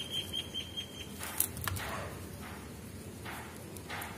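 Plastic basket wire rustling and rubbing as it is pulled through the weave, with a sharp click about a second and a half in. A fast run of high chirps, about eight a second, stops about a second in.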